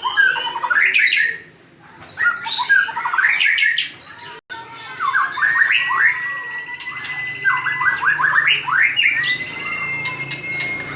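White-rumped shama (murai batu) singing a varied song of quick chirps and sweeping notes, with long, steady held whistles in the second half.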